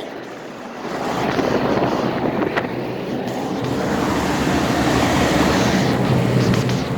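Outdoor air-conditioner condensing unit running: its fan blows a steady rush of air over a low hum, swelling about a second in.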